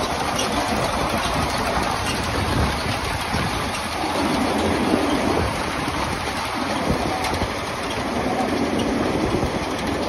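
Potato harvester working behind a tractor: steady engine and machinery noise with the clatter of the conveyor, and potatoes tumbling off the elevator into a wooden bin in scattered knocks.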